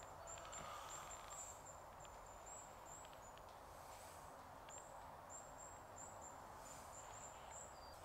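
Near silence in a forest: faint background hiss with a string of very faint, high, short chirps repeating throughout.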